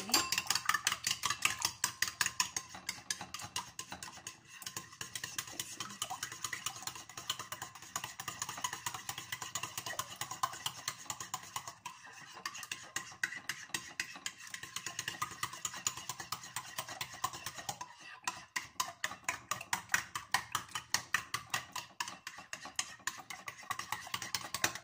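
Eggs being beaten with a long ice-cream spoon in a white ceramic bowl: the spoon clinks against the bowl over and over in a quick, regular rhythm, through the slosh of the eggs, with a few brief pauses.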